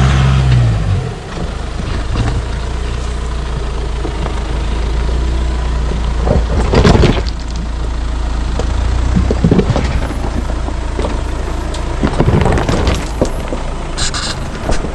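VW Amarok pickup crawling slowly over a loose rocky track: a steady low engine rumble, with its tyres crunching and knocking on stones several times along the way.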